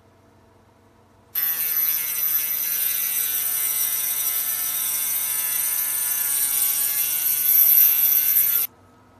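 Pen-style handheld mini drill running at a steady high whine while its bit bores into a plastic capsule-toy part, starting about a second in and cutting off suddenly near the end.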